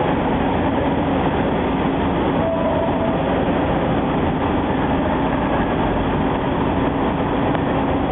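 Automatic double-head vertical glass drilling machine running: a steady, dense mechanical noise with a faint low hum, and a brief higher tone about two and a half seconds in.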